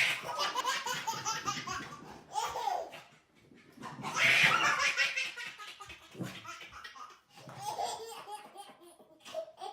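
A person laughing hard in several bouts, with short breaks between them.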